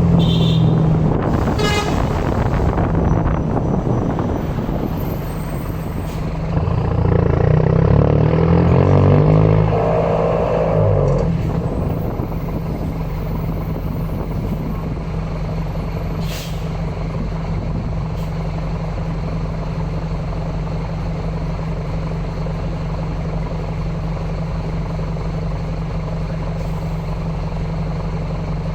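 Exhaust of a Mercedes-Benz LO 916 bus's OM924LA four-cylinder diesel engine running. It gets louder for a few seconds about seven to eleven seconds in, then settles to a steady, even drone.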